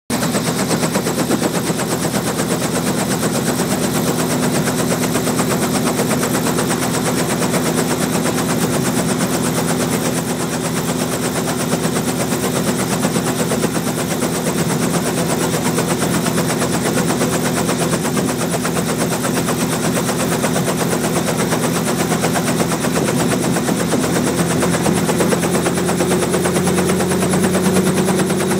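Robinson R44 Raven helicopter running on the ground with its two-blade main rotor turning: a fast, steady chop of the blades over the note of its six-cylinder Lycoming piston engine, rising slightly in pitch near the end.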